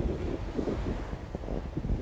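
Wind buffeting the microphone: an uneven, gusting rumble with no steady tone.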